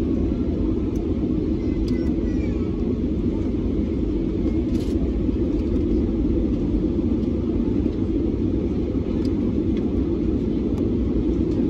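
Steady cabin rumble inside an Airbus A320neo descending on approach, heard from a window seat beside the wing: airflow over the fuselage mixed with the hum of its CFM LEAP-1A engines.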